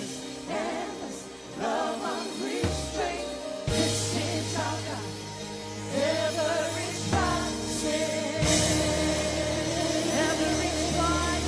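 Live worship band music with singing over a sustained bass line.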